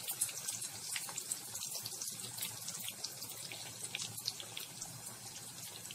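Gram-flour-coated chicken pieces deep-frying in hot oil in a kadhai: a steady sizzle with many small crackles and pops.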